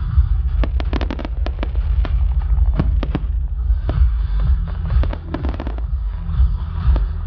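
Fireworks display: aerial shells bursting and crackling, with sharp rapid cracks in clusters about a second in, around three seconds and again around five seconds, over a steady low rumble.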